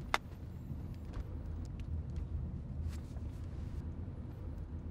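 Steady low rumble of a moving car heard from inside the cabin: engine and tyre noise, with one sharp click just after the start.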